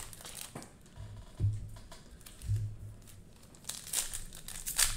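Plastic cello-pack wrapper on trading cards being torn open and handled, crinkling in dense bursts over the last second or so, with two brief low thuds of handling earlier on.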